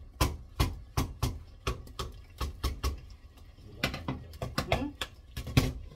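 Wooden spatula knocking and scraping against a steel cooking pot of curry: a string of sharp knocks, about two or three a second, with a short pause just past halfway.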